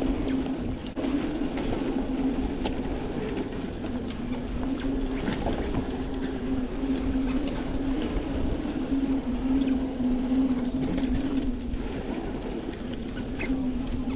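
1994 Specialized Stumpjumper FSR mountain bike ridden along a dirt trail: tyre rumble and wind on the microphone, with a steady buzz throughout and scattered short clicks and rattles over bumps.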